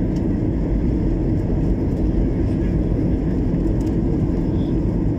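Steady low rumble of engine and rushing-air noise inside the cabin of a Boeing 737-800 airliner in flight on approach.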